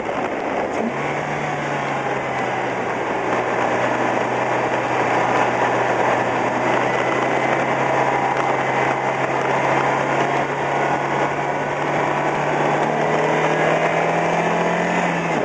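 A car driving along a winding paved road: steady tyre and wind noise, with the engine's hum holding one pitch from about a second in and shifting near the end.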